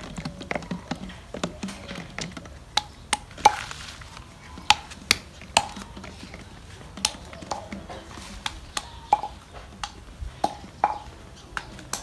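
Irregular sharp clinks and knocks of hard things against a dish or container, one or two a second, some with a short ring.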